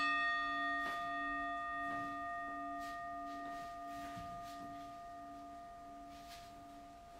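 Singing bowl struck once, ringing on with several steady overtones and a slow wobbling pulse in its lowest tone, fading gradually.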